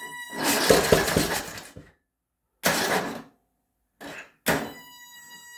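A tractor being tried on its new starter without starting: a harsh clattering burst about half a second in that lasts over a second, then shorter bursts a couple of seconds apart, with a steady high-pitched whine in between. The owner can't tell what fault is making the noise.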